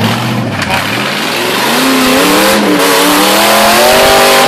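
Off-road 4x4's engine revving hard, its pitch climbing from about a second in and then held high and loud, as the tyres fail to grip on a steep muddy climb and the vehicle rolls over.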